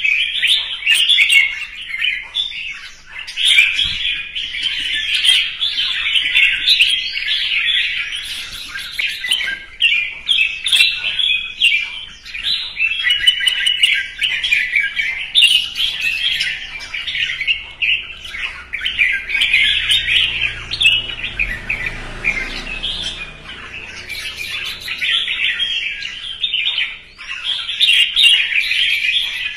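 Red-whiskered bulbul singing its competitive fighting song, a dense, almost unbroken run of quick chirping phrases.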